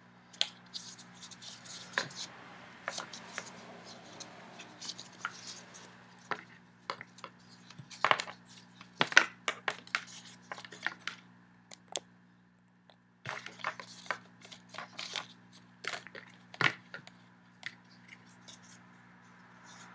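Cardboard box and foam packaging being handled as earphones and their cable are tugged free: irregular rustling, scraping and clicking, with a short lull partway through, over a steady low hum.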